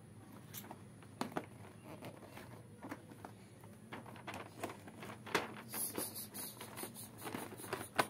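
Light taps, clicks and rustles of hands handling a gift box with a clear plastic lid, scattered at first and coming more often from about the middle on.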